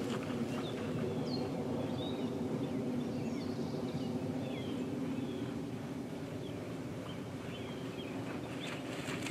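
Outdoor ambience: small birds chirping over a steady low hum, with a few hoofbeats near the end.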